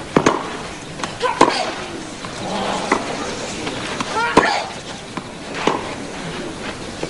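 Tennis ball struck back and forth with rackets in a clay-court baseline rally: five sharp hits about every second and a half, some followed by a player's short grunt.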